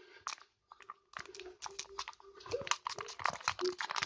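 Sticky homemade slime being stirred in a container, a quick irregular run of wet clicks and crackles with a brief pause about a second in.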